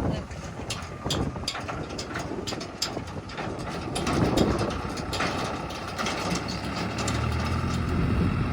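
Heavy diesel machinery running steadily, with repeated sharp clicks and knocks over the engine hum; the engine grows louder near the end.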